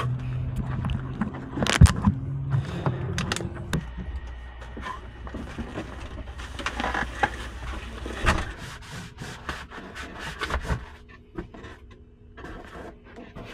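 Knocks, clicks and scraping as a person climbs up into a semi-truck cab and handles the driver's seat, with a sharp loud knock about two seconds in. A low steady hum runs underneath.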